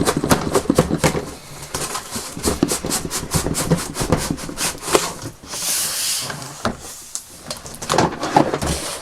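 Cardboard box being cut open with a knife and its flaps and packing handled: a steady run of short clicks, crackles and scrapes, with a longer scraping rustle about six seconds in.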